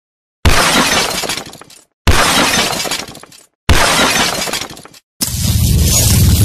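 Intro sound effects: three sudden crashing, shattering hits about a second and a half apart, each dying away, then a loud steady low rumble that starts about five seconds in and carries on.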